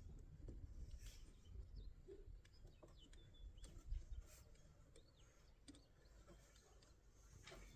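Near silence with faint bird chirps and a few light clicks.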